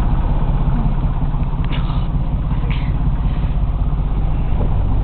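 A boat's motor running steadily with a low, fast-pulsing throb. Two brief higher sounds come through about two and three seconds in.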